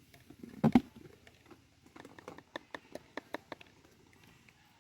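Sharp knocks and taps: a loud double knock just under a second in, then a quick run of lighter taps, about four or five a second, that stops short of the end.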